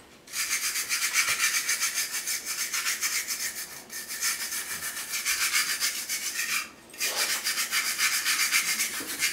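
A wire brush is scrubbed rapidly back and forth over a 3D printed TARDIS made of iron-filled PLA plastic, scratching the surface to expose the iron particles. The brushing pauses briefly twice.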